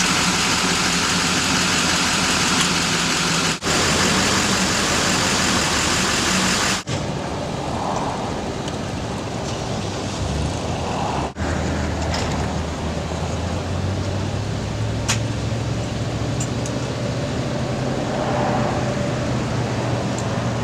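A 2006 Chevrolet C4500 bucket truck's engine running, loud and close through the open hood at first. After cuts at about four and seven seconds it is farther off and quieter, with a steady low hum that rises slightly in pitch in the second half.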